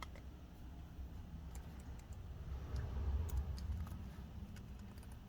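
Faint, scattered clicks from operating a laptop's keys and touchpad, over a low rumble.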